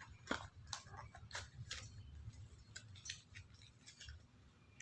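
Faint, irregular light clicks and taps of a plastic mirror cube being handled and fitted back into its box.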